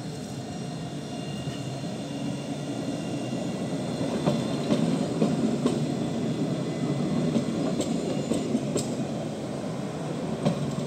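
Electric tram passing close by: a rolling rumble that grows louder about four seconds in, with sharp clicks from the wheels on the rails as the cars go by.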